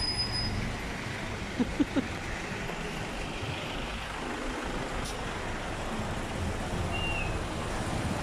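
Street traffic of motorbikes and scooters running and passing close by, with a steady traffic rumble. Three short loud blips come close together about two seconds in.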